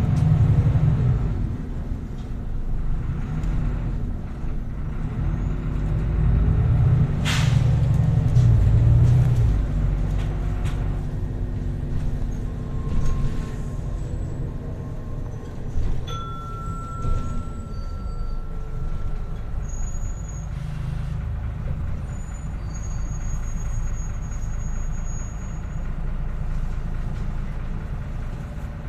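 Irisbus Agora S diesel bus heard from inside the cabin, its engine pulling and changing pitch as the bus accelerates, with a short sharp hiss of compressed air about seven seconds in. The engine then settles to a quieter steady running with a few faint thin high squeaks.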